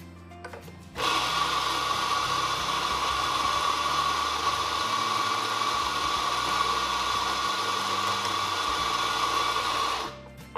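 Electric coffee grinder grinding coffee beans for espresso: a steady grinding noise with a whine in it that starts about a second in and cuts off near the end.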